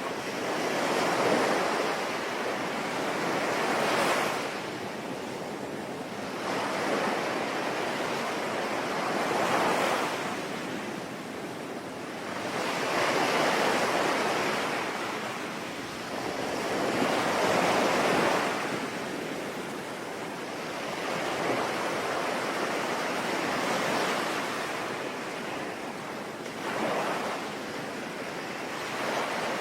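Sea waves breaking and washing ashore in slow swells every four to five seconds, over a steady hiss of rain.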